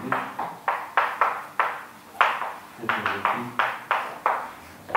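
Chalk writing on a blackboard: a run of short, sharp taps and strokes, about three a second and unevenly spaced, as an equation is written out.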